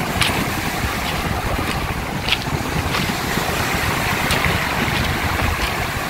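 Storm surf breaking and washing up a pebble beach, with wind buffeting the microphone and occasional sharp clicks.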